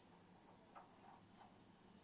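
Near silence: room tone, with three faint ticks in quick succession near the middle.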